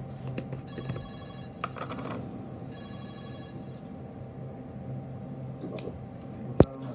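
Two short electronic ringing tones, each a little over a second long with a brief gap between, over a steady low hum; a single sharp clack near the end.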